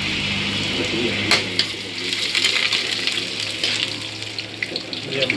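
Chopped garlic frying in hot oil in a wok, sizzling steadily, while a metal spatula stirs it, with a sharp clink of the spatula on the wok about a second in.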